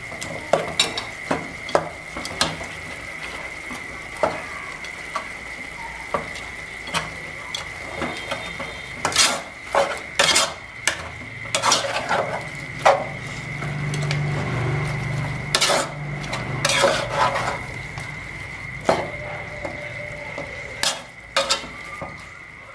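Metal spatula scraping and knocking against an aluminium pot, irregular clanks as snails in their shells and vegetables are stir-fried, over a low sizzle.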